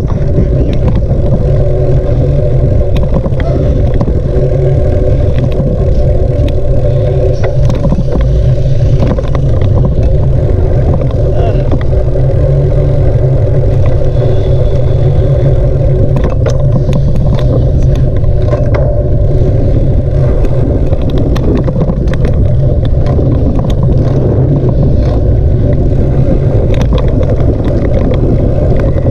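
Wind buffeting the microphone of a camera riding along on a moving bicycle: a loud, steady rumble with scattered clicks and rattles.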